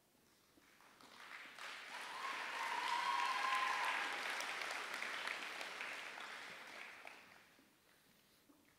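Audience applauding, swelling about a second in, at its loudest midway and fading away near the end.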